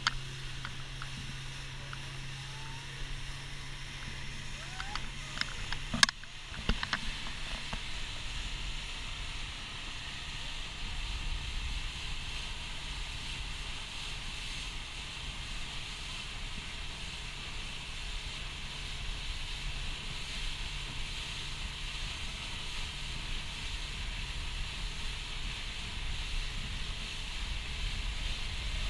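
Motorboat running at speed over open water: engine drone, water hissing and splashing along the hull, and wind buffeting the microphone. A sharp click comes about six seconds in; after it the steady hum drops out and the low wind rumble grows.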